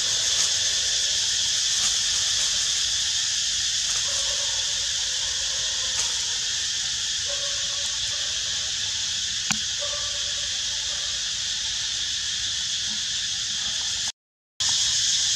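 Steady, high-pitched drone of a cicada chorus, with a few faint short calls beneath it and one sharp click past the middle; the sound drops out for a moment near the end.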